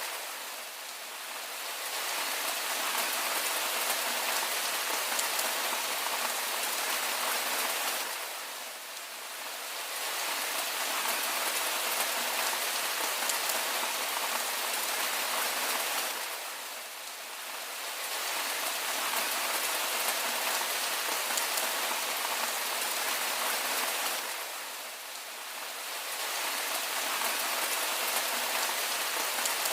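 Steady rain falling, an even hiss of drops with little low rumble. It dips briefly in level about every eight seconds.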